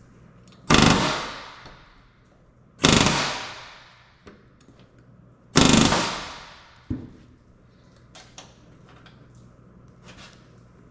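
Pneumatic rivet gun driving aluminium rivets into the horizontal stabilizer of a Van's RV-10 against a bucking bar. It fires three short hammering bursts, each setting one rivet, with the aluminium skin ringing and fading after each, then a small knock and a few light clicks.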